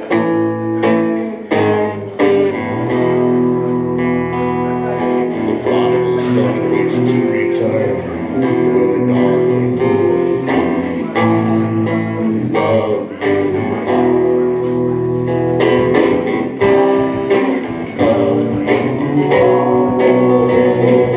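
Live rock band playing: strummed guitar chords over bass and drums, all starting together at once.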